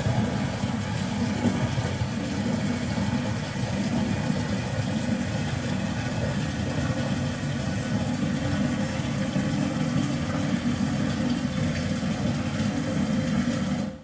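Toilet water running in a steady, even rush with a low rumble under it, stopping abruptly at the end.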